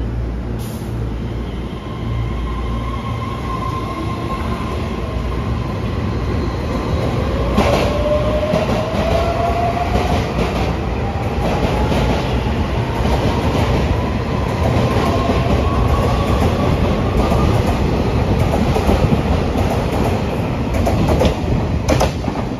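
Taiwan Railways EMU3000 electric multiple unit pulling out of a station: a low running rumble under a motor whine that climbs steadily in pitch as the train gathers speed, with wheels clacking over rail joints as the cars pass.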